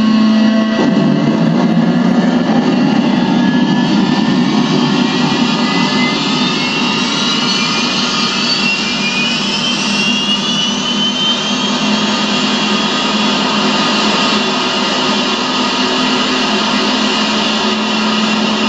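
Film soundtrack of the Icarus spacecraft sunk underwater: a loud, steady rushing noise under a low hum, with thin tones gliding slowly upward for several seconds in the middle.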